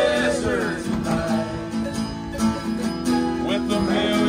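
Acoustic guitar playing with a voice singing over it, a country-style song.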